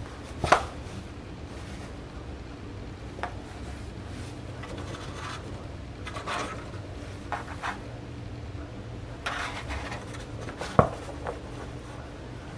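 A cat rolling and pawing on a sheet of cardboard: scattered scratches and rustles of claws and fur against the cardboard. Two sharp knocks, about half a second in and near the end, are the loudest sounds, over a faint steady low hum.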